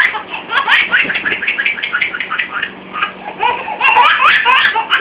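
Ticklish laughter: one person laughing helplessly in rapid, high-pitched bursts, several a second, with a short break just after the middle before it starts again.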